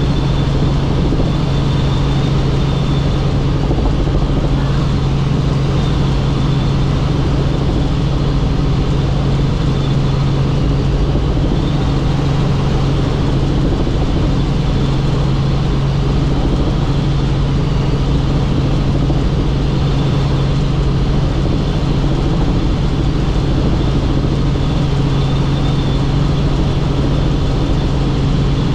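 Helicopter in flight: a steady drone of rotor and turbine engine, with a strong low hum and a faint high whine, unchanging throughout.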